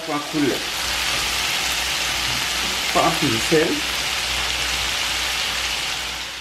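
Raw shrimp frying in hot oil with crushed garlic and red pepper flakes in a skillet: a steady, loud sizzle that eases off near the end.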